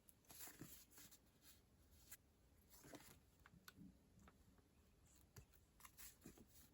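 Faint paper handling: short soft rustles with a few small clicks and taps in between.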